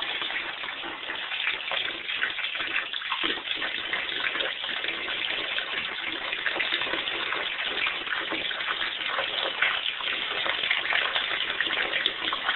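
Tap water running steadily into a bathtub, splashing as a young raccoon paws at the water.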